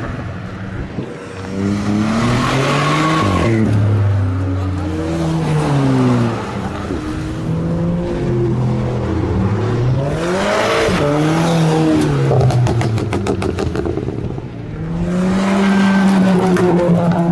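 Tuned car engines revving hard, their pitch climbing and dropping again and again through acceleration and gear changes, with more than one car at times. A run of rapid exhaust crackles comes about two-thirds of the way through and again near the end.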